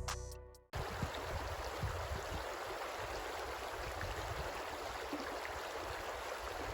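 Creek water running steadily, an even rushing noise, after background music fades out in the first second.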